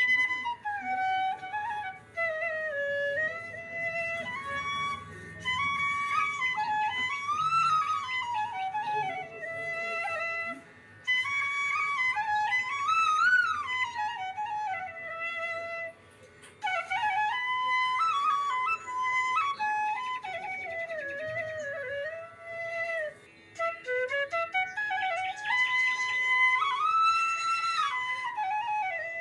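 Instrumental background music: a single melody line that winds slowly up and down, with a few short breaks.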